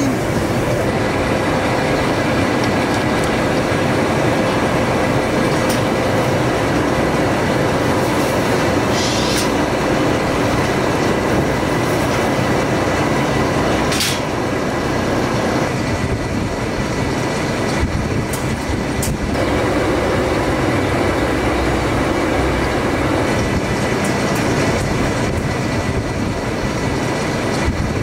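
Steady mechanical running noise with a faint constant hum, broken by a few sharp clicks and knocks.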